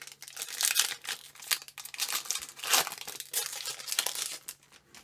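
Trading card booster pack wrapper being crinkled and torn open, a run of irregular crackling rustles.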